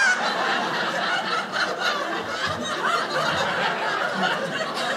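A live audience laughing together, a steady crowd of many voices.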